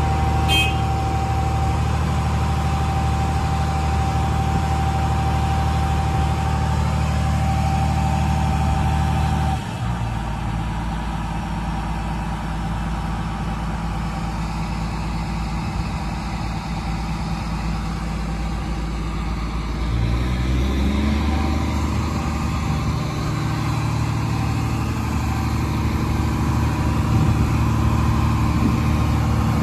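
Diesel engine of a LiuGong 950E crawler excavator running under load with a steady whine. About ten seconds in, the whine stops and the engine note drops. Around twenty seconds in, it rises and the engine gets louder again.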